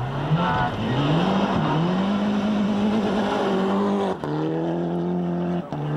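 1999 World Rally Car's turbocharged four-cylinder engine pulling hard at high revs, heard from inside the car, its pitch rising and dipping with the throttle, then dropping sharply twice, about four seconds in and near the end, as it shifts up a gear.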